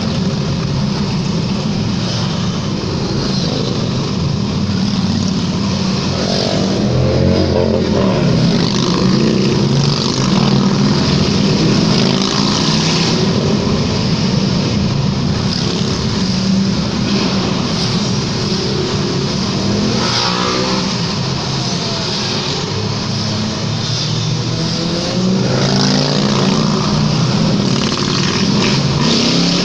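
A motorcycle convoy riding past one bike after another, a continuous mass of engines, heard from inside a road tunnel. Engines rise in pitch as riders open the throttle, about seven seconds in, around twenty seconds and again near the end.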